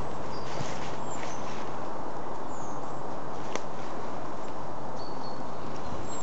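Footsteps through dry leaf litter over a steady background noise, with a few short, high bird chirps and a single click about halfway through.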